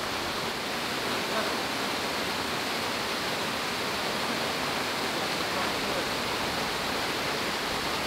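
Steady rush of a waterfall pouring into a rock pool.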